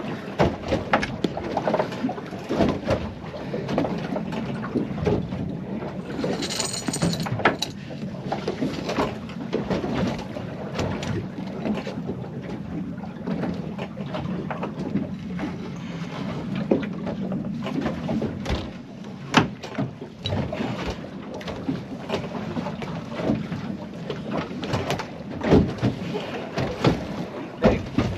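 Irregular knocks and clunks on a fibreglass boat while a line is hauled hand over hand through an overhead pulley, over a steady wash of water and wind.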